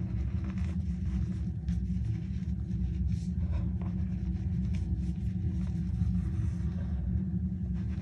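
Dyed cornstarch and gym chalk reforms being squeezed and crumbled by hand, giving a dense, low, continuous squeaky crunch with scattered light crackles of breaking chunks.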